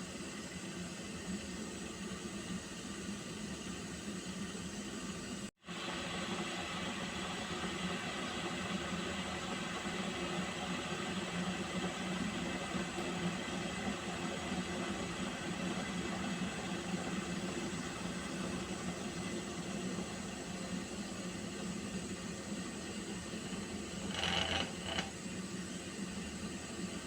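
Water heating toward the boil, a steady hiss with a low hum underneath. The sound cuts out for an instant about five seconds in, and a brief louder burst comes near the end.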